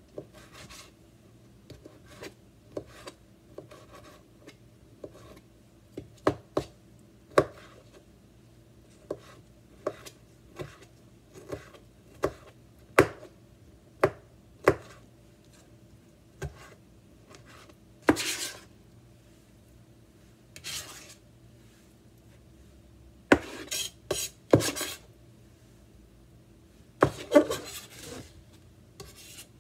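Chef's knife chopping a soft Roma tomato on a plastic cutting board: irregular sharp knocks of the blade on the board, with a few longer scraping sounds in the second half.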